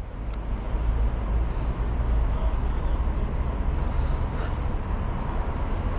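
Low, steady rumble of road traffic passing close by, swelling over the first second.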